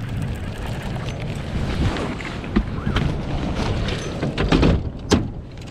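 Wind buffeting the microphone on an open boat, with a few sharp clicks and knocks near the end as fishing gear is handled.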